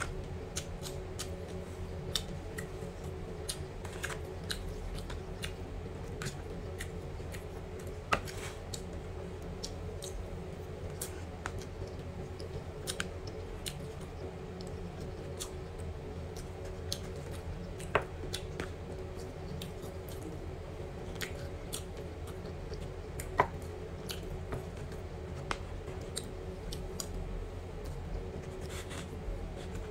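Eating sounds: a metal spoon clicking and scraping in a plastic takeaway box, with chewing. A few sharper clinks stand out over a steady low hum.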